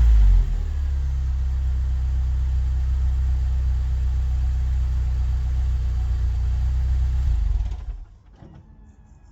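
BMW E36 318i's stock M43B18 four-cylinder engine coming down from a rev and settling into a steady idle, then stopping near the end.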